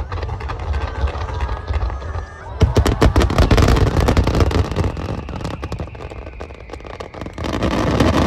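Fireworks finale starmine: rapid volleys of shell bursts and crackling over a deep rumble of booms, growing much denser about two and a half seconds in. Crowd voices underneath.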